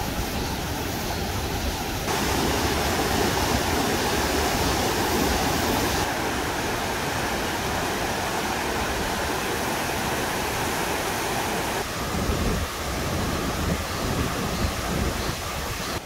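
Mountain stream rushing over rocks and shallow rapids, a steady full water sound that steps up in loudness about two seconds in.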